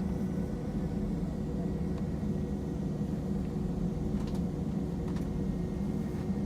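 Steady cabin noise inside an Airbus A320 airliner: a constant hum of engines and air system with a few steady tones, and a couple of faint clicks a little past the middle.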